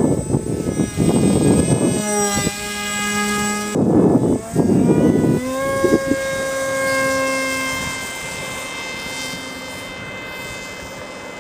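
Homemade foam delta-wing RC plane's motor and propeller whining in flight. Rough gusty noise bursts cut in twice during the first half. The whine then holds steady, sinking slightly in pitch and slowly fading.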